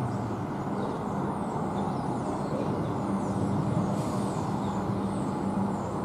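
Comeng electric suburban train creeping into a station platform: a steady rumble of wheels and running gear with a low hum, plus faint high-pitched squeals.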